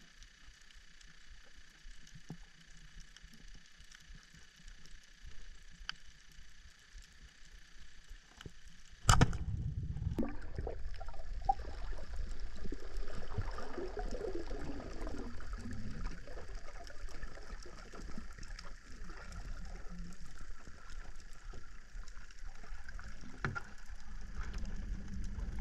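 Water gurgling and sloshing around an underwater camera, faint at first, then louder after a sudden knock about nine seconds in. Right at the end comes a sharp crack as a band-powered speargun fires.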